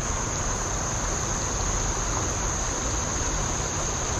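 A steady high-pitched drone of insects, over the even rush of water running through creek rapids.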